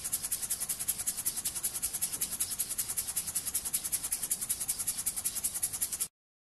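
Model steam engine running steadily: fast, even chuffing and clatter, about ten beats a second, as it drives a belted generator. The sound cuts off suddenly about six seconds in.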